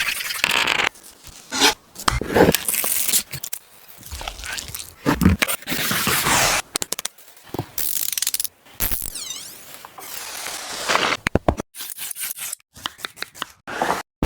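A quick run of kitchen food-preparation sounds cut one after another: scraping, tearing and crackling noises, ending in a string of sharp clicks and knocks.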